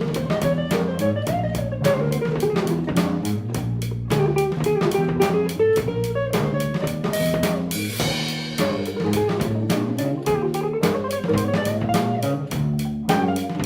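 Instrumental band playing: a drum kit keeps a steady beat under guitar, with a melody line wandering above.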